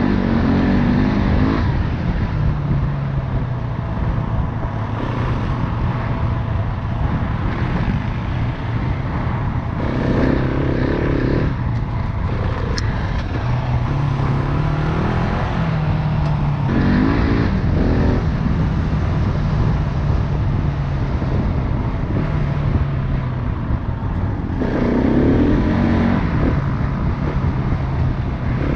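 Off-road motorcycle engine running under way, its pitch rising and falling again and again with throttle and gear changes.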